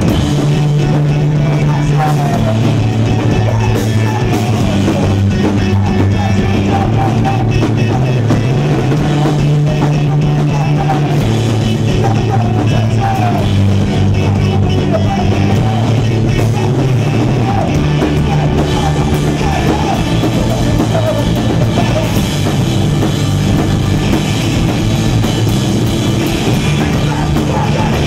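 Loud rock music from a band with a drum kit, playing continuously with a shifting bass line and busy melodic lines above it.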